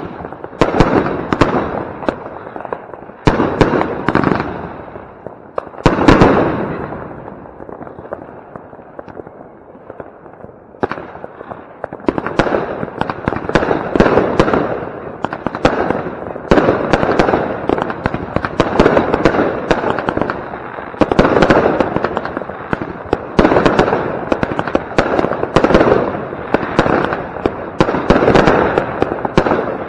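Consumer firework batteries firing: the last loud shots and bursts of a Funke Scala 25C cake, each followed by fading crackle, then a short lull. From about eleven seconds in, two Blackboxx Hypnotika and a Gaoo Fluffy Willow battery fire together in a dense, rapid volley of launches and bursts.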